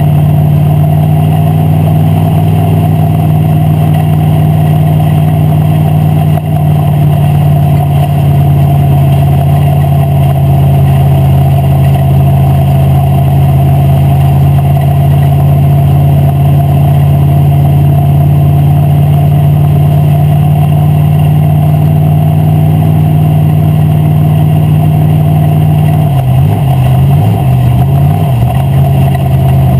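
Wissota Street Stock race car's V8 engine running loud and steady, heard from inside the cockpit. Its speed wavers up and down near the end.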